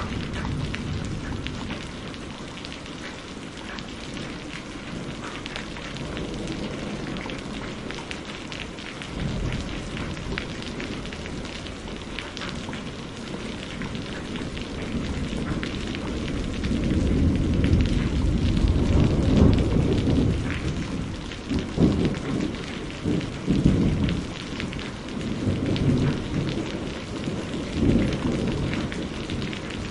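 Steady heavy rain, a dense patter of drops. Low rolling thunder comes in about a third of the way through and swells louder, in repeated rumbles, through the second half.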